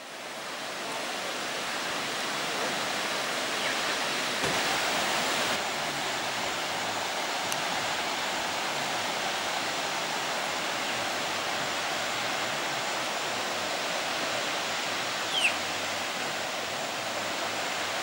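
Waterfall rushing, a steady even roar of falling water. A short high chirp comes near the end.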